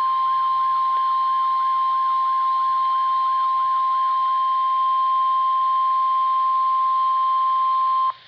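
Weather radio warning alarm tone: one steady, loud, high tone held for about eight seconds and cutting off abruptly near the end. For the first half, a rapid falling chirp repeats about four times a second over it.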